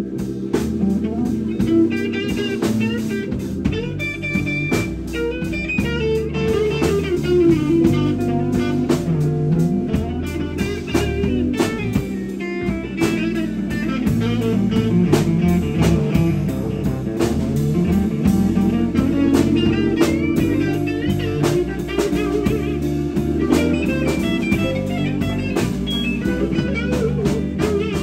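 Live blues band playing an instrumental break: an electric guitar plays lead with bent, gliding notes over drums and bass guitar.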